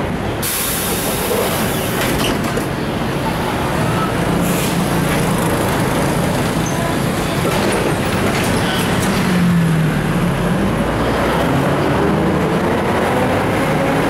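Inside a moving Mitsubishi city bus with its windows open: the bus's diesel engine running under steady road and street-traffic noise. A hiss comes in about half a second in and lasts a couple of seconds, and the engine note rises near the end.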